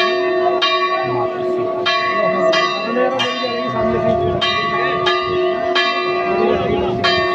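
A Hindu temple bell struck again and again, a strike roughly every two-thirds of a second, each strike ringing on over the chatter of a crowd.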